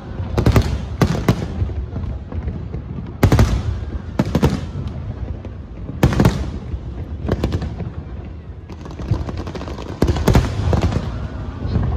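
Fireworks display: aerial shells bursting in irregular loud bangs over a continuous low rumble, with the bangs coming thicker and faster in the last few seconds.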